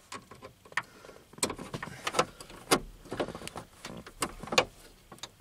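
Hand screwdriver driving a screw into a plastic truck dash panel: a string of irregular clicks and creaks as the screw is turned in.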